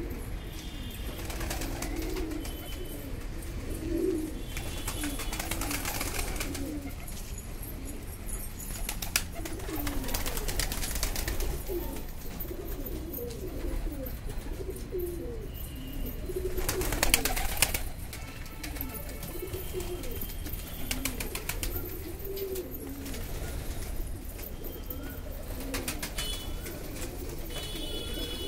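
A flock of domestic pigeons cooing: many short, low coos, overlapping and repeating throughout. A few brief louder bursts of noise break in, the loudest about two-thirds of the way through.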